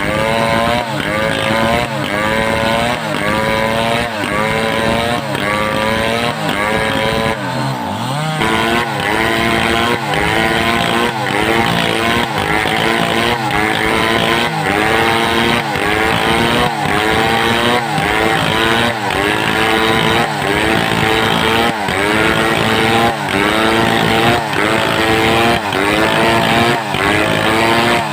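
A two-stroke assembled chainsaw cutting wood lengthwise: the engine runs hard, its pitch climbing and dropping sharply over and over, about once or twice a second, as the bar rocks in the cut.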